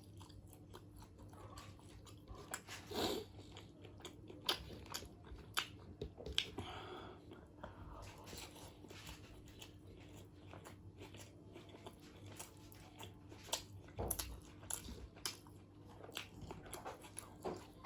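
Close-miked chewing and biting into chicken biryani: wet mouth clicks and smacks with a few crunchy bites, irregular throughout, over a faint steady low hum.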